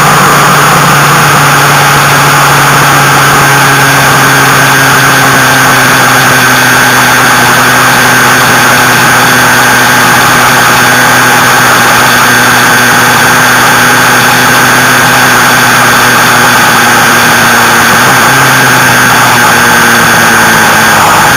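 Motorcycle engine running at a steady cruise under loud rushing wind and road noise; the engine note shifts a little near the end.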